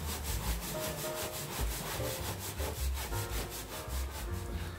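Hands working wet wheat-flour dough in a plastic bowl: a fast, steady run of rubbing and squishing strokes as flour and water are mixed into dough.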